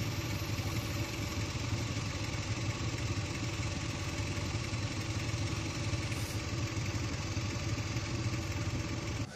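A vehicle engine idling steadily with a low, fluttering hum.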